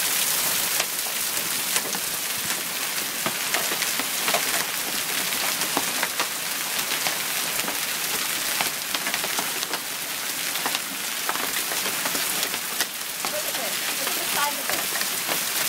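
A heavy downpour of rain and half-inch hailstones: a steady hiss of falling rain, with hailstones striking hard surfaces in many sharp, irregular clicks.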